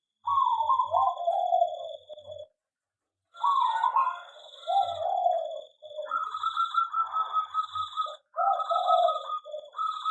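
Zebra doves (perkutut) cooing in repeated bursts of rolling, trilled coos, some falling in pitch, with calls overlapping at times. A steady high-pitched tone sounds along with them.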